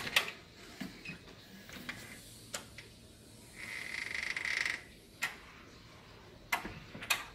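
A swinging screen door and its pneumatic closer being worked: scattered clicks and knocks of the door hardware, a hiss lasting about a second midway as the closer moves, and a cluster of sharper clicks near the end.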